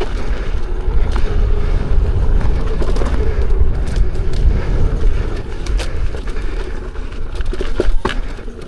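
Electric unicycle ridden fast over rocky offroad ground: heavy wind buffeting on the rider's microphone and tyre rumble, with scattered sharp knocks from rocks and suspension hits, and a faint steady motor whine through the first half.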